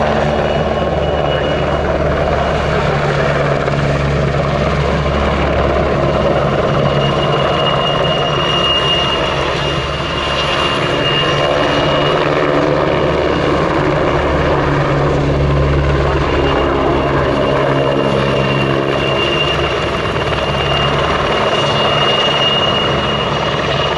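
PZL-Świdnik W-3A Sokol helicopter in flight, its rotor beat and twin turboshaft engines running steadily with a thin high turbine whine. The low rotor sound swells and eases a little as it manoeuvres.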